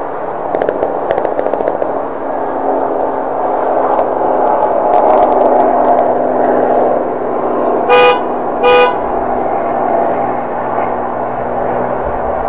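A vehicle horn gives two short toots in quick succession, over steady road-traffic noise with a low hum. Earlier, a quick rattle of clicks sounds in the first couple of seconds.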